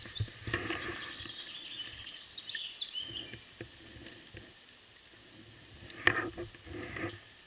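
Footsteps moving quickly through woodland undergrowth, with leaves rustling, twigs snapping and gear knocking against the body. The loudest crunch or knock comes about six seconds in.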